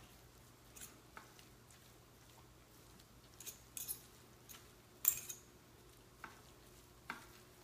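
Two forks shredding cooked chicken breast on a plate: faint, scattered clicks and scrapes of the tines against the plate, the sharpest about five seconds in.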